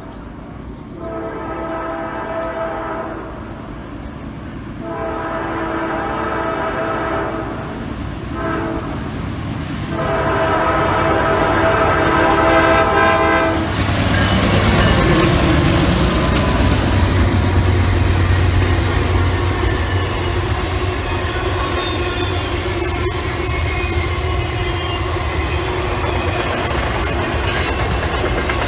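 Norfolk Southern diesel freight locomotive's air horn sounding a series of blasts for the grade crossing as the train approaches, the last blast the longest. The horn then stops as the locomotives pass close by with a loud, low diesel rumble. Intermodal flatcars follow, clattering over the rail joints with high wheel squeal.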